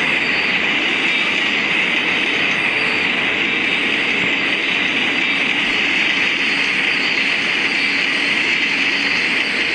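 A Philippine National Railways train running on the rails: a steady, loud rush of wheel-and-rail noise, strongest in a high band, with no change in level.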